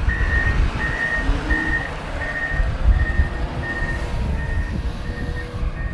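Backup alarm on heavy equipment beeping steadily, about one beep every 0.7 s and growing fainter toward the end, over a low engine rumble.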